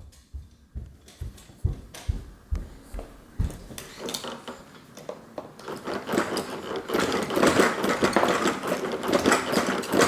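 Socked footsteps thudding on a wooden floor for the first few seconds, then, from about five seconds in, a dense rapid clicking and rattling from a baby activity jumper's plastic toys and frame as the baby bounces and plays in it.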